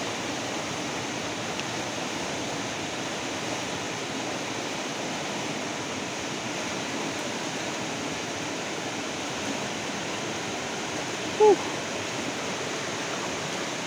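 Swift river current rushing steadily. About eleven seconds in, a brief falling pitched sound rises above it.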